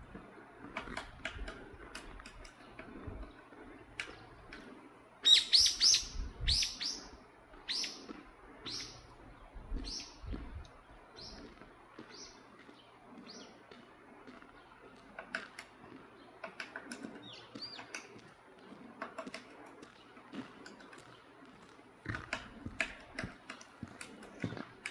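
Great spotted woodpecker calling: a quick burst of sharp, high calls about five seconds in, then single calls about once a second that grow fainter. Scattered light ticks are heard throughout, more of them near the end.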